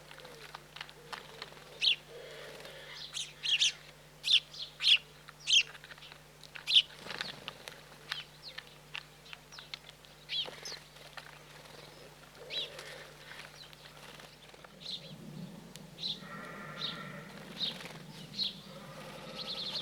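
Small wild birds chirping at a garden feeder: short, sharp high calls, with a quick run of loud ones a few seconds in. A lower, longer call comes in near the end.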